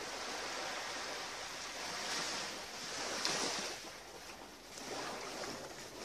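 Small waves lapping and washing on a beach shore, the wash swelling and easing about three times.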